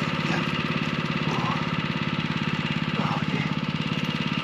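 A small engine running steadily with a fast, even beat and a low hum, with faint voices over it.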